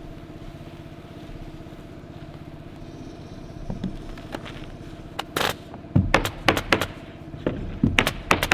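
A steady engine hum, then from about five seconds in a quick run of sharp, loud clacks: fasteners being driven to tack roofing underlayment to the roof deck.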